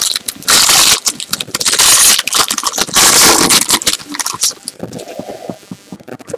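Foil trading-card pack wrapper being torn open and crinkled by hand close to the microphone: a run of loud crackling rips for about four seconds, then softer rustling as the cards come out.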